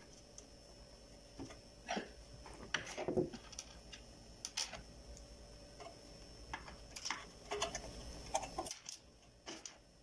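Scattered small clicks and taps, irregular and about a dozen in all, from hands and a screwdriver handling the wire connectors and metal parts of an opened microwave oven around its magnetron. A faint low hum underneath cuts off near the end.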